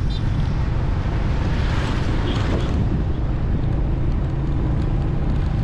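Steady low rumble of wind buffeting the microphone, mixed with the running noise of the moving vehicle it rides on.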